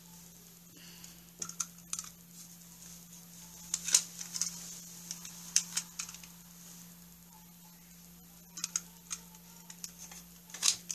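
Scattered light clicks and taps of hands handling satin ribbon strips against a spiral notebook's cover, in small irregular clusters, over a faint steady hum.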